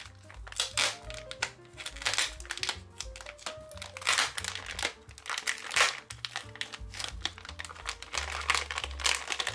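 Packaging crinkling and rustling in irregular bursts as a sticker-subscription package is handled and opened, loudest around the middle. Background music with a steady bass line plays underneath.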